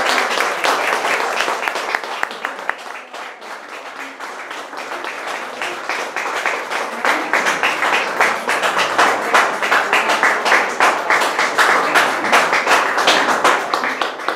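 Audience applauding. The clapping thins out a few seconds in, then swells again about halfway through.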